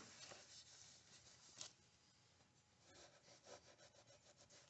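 Faint rubbing of a cloth rag being wiped around the wall of a freshly honed motorcycle engine cylinder bore, in uneven scratchy strokes with a small click about a second and a half in.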